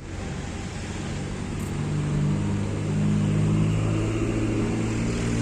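A motor spinning up: its hum rises in pitch and loudness over the first two seconds, then holds steady.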